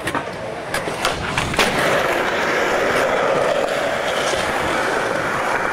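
Skateboard on smooth concrete: a few sharp board clacks in the first second and a half, then the wheels rolling steadily.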